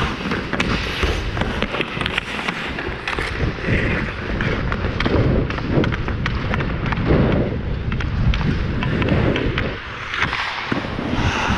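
Hockey skates scraping and carving on the ice, with frequent sharp taps and thumps of a hockey stick on the puck, heard close up from a helmet-mounted camera.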